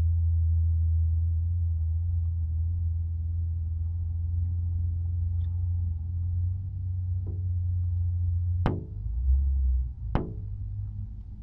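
A steady low rumble, joined about seven seconds in by slow, evenly spaced struck notes that ring and die away, about a second and a half apart.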